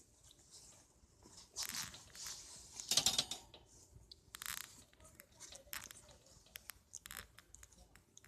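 Napping puppies stirring: a handful of short, soft rustling and snuffling noises a second or so apart, the loudest about three seconds in.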